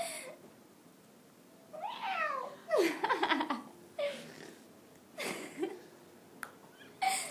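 Domestic cat meowing and yowling several times during rough play, each call sliding down in pitch. The calls start about two seconds in.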